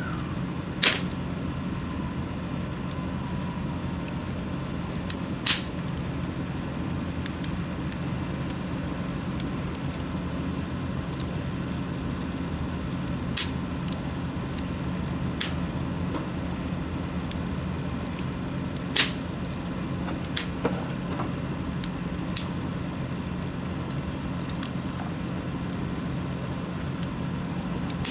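Wood fire crackling, with sharp pops every few seconds over a steady low hum.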